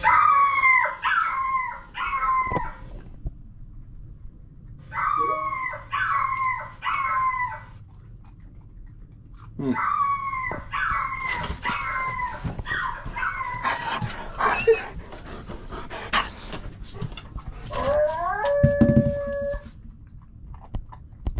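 Recorded cocker spaniel puppy howling, played through laptop speakers: three bouts of short, high whines, each falling in pitch. Near the end comes a lower, steadier howl.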